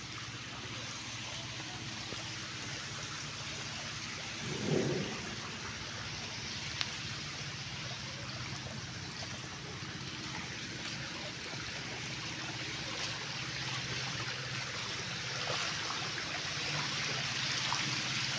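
A dense mass of small fish wriggling and splashing in very shallow water, a steady pattering hiss like light rain. A faint low hum runs underneath, and a short louder low rumble comes about five seconds in.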